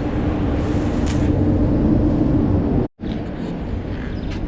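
Steady mechanical hum and rumble with one held low tone, cut off abruptly about three seconds in and then carrying on a little quieter.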